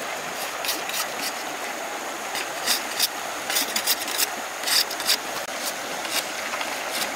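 Machete blade scraping and shaving along a split bamboo strip in short, irregular strokes, over the steady rush of a shallow stream.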